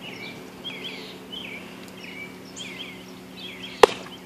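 A pitched baseball smacks into a leather catcher's mitt with one sharp pop near the end. Birds chirp over and over throughout.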